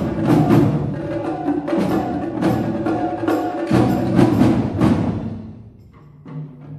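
Percussion ensemble playing: dense struck strokes with ringing pitched tones that die away about five seconds in, followed by quieter, softer strokes over low held notes.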